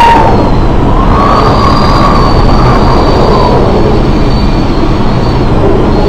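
Loud, steady roar of storm wind and sea, with a faint, thin whistle that wavers slowly up and down.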